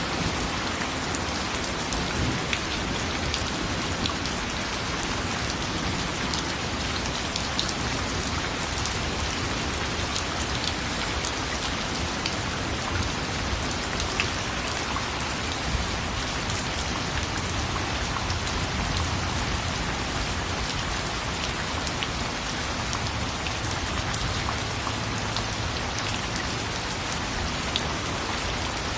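Steady rain falling on a surface, with many individual drops ticking sharply through the even hiss.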